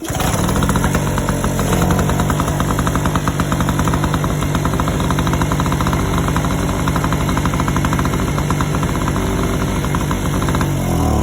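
Tiger petrol generator engine running steadily with its capacitor wire disconnected. Its sound does not change, which the mechanic takes as the sign that the alternator capacitor is bad.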